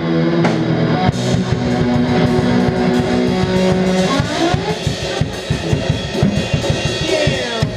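Live rock band playing: electric guitar and bass over a drum kit. Held guitar and bass notes ring for the first few seconds, then about four seconds in the drums break into rapid, dense hits while the guitar slides up and down in pitch.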